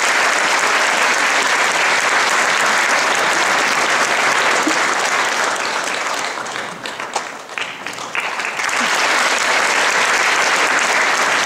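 Audience applauding: dense, steady clapping that thins for a moment past the middle, with a few single claps standing out, then swells back to full.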